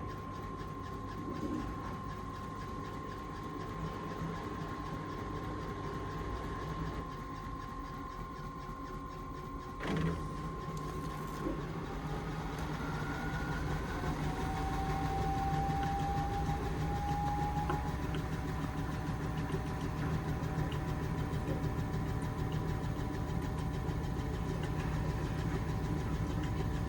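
Indesit washing machine running an intermediate spin: a steady whine, a click about ten seconds in, then the motor's whine glides up as the drum gathers speed and the running grows louder.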